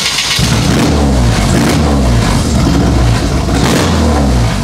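Swapped-in Subaru EJ-series flat-four engine in a VW Beetle running and being revved up and down. The engine is newly running on a MegaSquirt standalone ECU after a firing-order fix and is still untuned.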